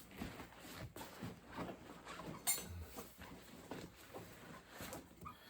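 Faint rustling, scraping and clicking of a car seat's upholstery cover being worked off the seat, with one sharper click about two and a half seconds in.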